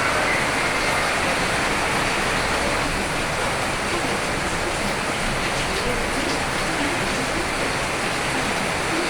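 Steady rain falling, a constant even hiss of drops with no distinct strikes standing out.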